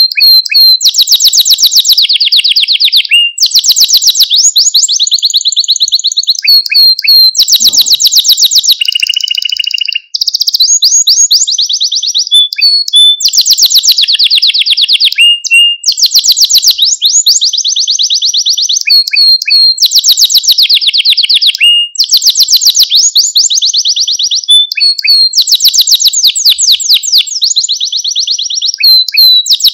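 A male canary singing loudly: phrase after phrase of rapid, rolling trills of high repeated notes, with brief breaks between phrases.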